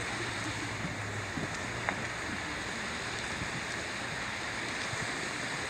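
Steady rush of a waterfall pouring over rocks, with a single faint click about two seconds in.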